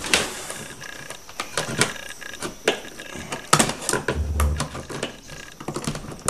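Hands working a light switch and its wires in an electrical box: scattered clicks, taps and small plastic-and-metal knocks, with a low dull thump a little after four seconds in.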